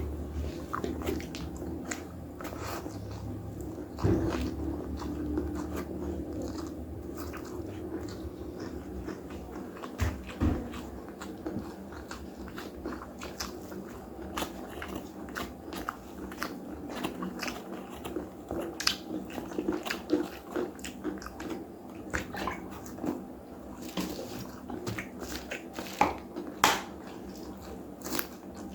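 Close-miked eating of nasi Padang: steady chewing and biting, with many short wet clicks and occasional crunches.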